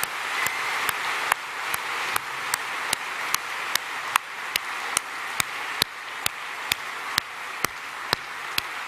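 Audience applauding, with one person's hand claps close to the podium microphones standing out as sharp, evenly spaced claps about twice a second.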